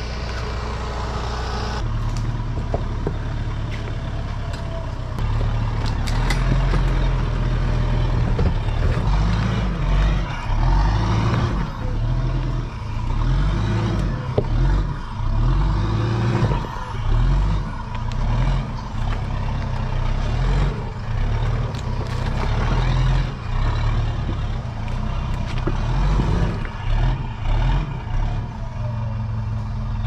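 Mitsubishi Pajero Sport's diesel engine working under load on an off-road track, revving up and falling back again and again, with scattered knocks and clicks.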